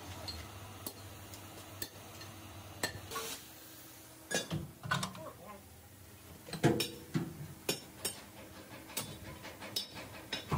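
Irregular metallic clinks and knocks from handling truck drum-brake shoes and their lining rivets, with a louder knock about two-thirds of the way through.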